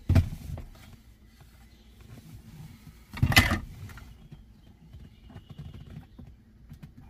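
Handling noises as cup holder inserts are taken up and set into a car's cup holders: a short bump at the start and a louder one about three seconds in, with faint rubbing and rustling between.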